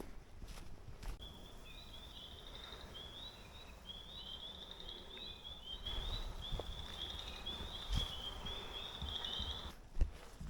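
A songbird singing one long, unbroken run of rapid, high chirping notes that rise and fall. It starts about a second in and stops shortly before the end. A few soft low knocks sound underneath.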